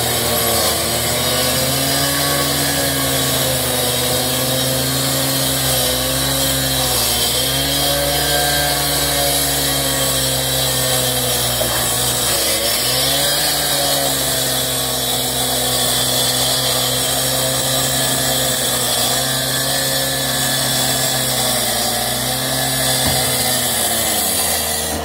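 Gas-powered walk-behind concrete saw running and cutting dry through a concrete slab, with a steady engine note and a continuous grinding hiss from the blade. The engine pitch dips briefly a few times as the blade bites under load.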